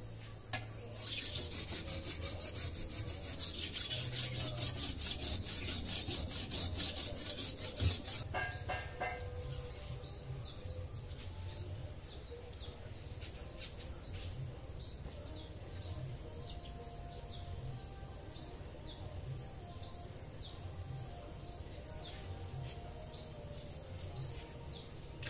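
A machete blade is rubbed back and forth in quick, even strokes on a river-stone whetstone. The strokes end about eight seconds in with a ringing metal clank. After that, a bird chirps over and over, about twice a second.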